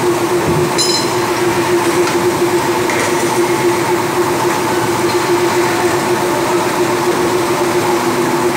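Section roll forming mill with a flying shear running: a loud, steady machine hum with one strong steady tone, and a brief high squeal about a second in.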